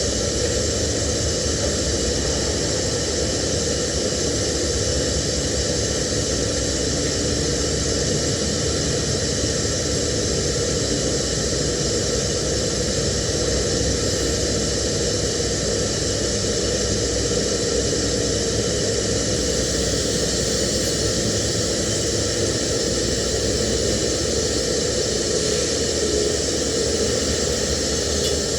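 TIG welding arc, a steady even hiss with a faint hum, held unbroken.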